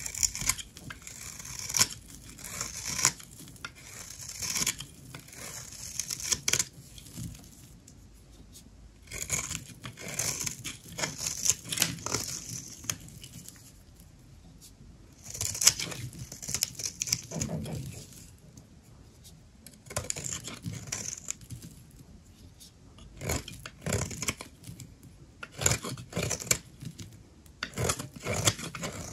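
A knife cutting into a bar of soap in a run of short strokes, coming in clusters with pauses of a second or two between them.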